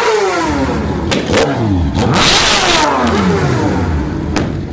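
Sport motorcycle engine revved hard twice, its pitch falling away each time the throttle is let go, with a few sharp cracks from the exhaust.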